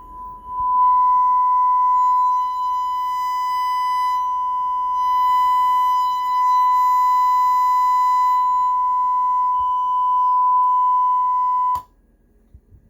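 A steady, loud, high-pitched test tone holding one pitch. It is faint at first, comes up strongly about half a second in, and cuts off suddenly with a click about a second before the end.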